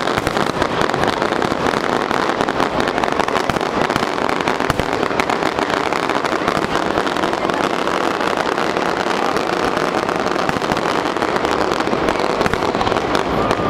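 Aerial fireworks shells bursting in a continuous, rapid barrage, a dense run of bangs and crackles with no pause.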